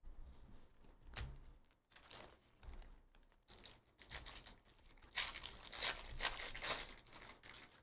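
Trading card pack wrapper being torn open and crinkled, in irregular crackling bursts, the heaviest stretch coming about five seconds in.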